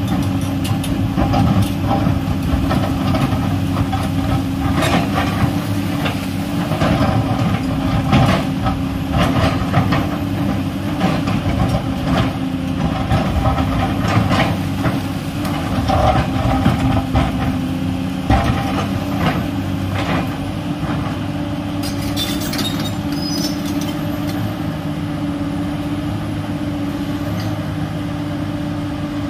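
Komatsu PC210LC hydraulic excavator's six-cylinder diesel engine running steadily under working load while the steel bucket scrapes into a slope of soil and rock, with repeated knocks and clatter of stones and earth. The knocking and scraping thin out in the last third, leaving mostly the engine's steady drone.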